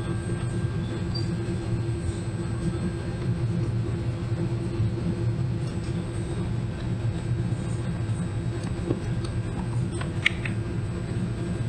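Steady low mechanical hum. About ten seconds in comes a sharp plastic click as a fog light cover is pressed onto its mounting tabs on a plastic bumper cover.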